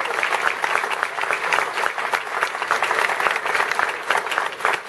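An audience applauding: many hands clapping together at a steady level.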